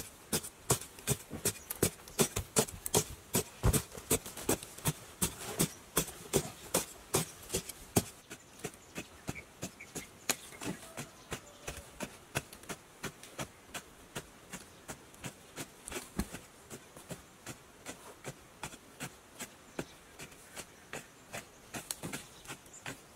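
A digging stick striking and breaking up packed sandy soil, over and over at about two blows a second. The blows are loud for the first several seconds, then fainter but keep the same pace.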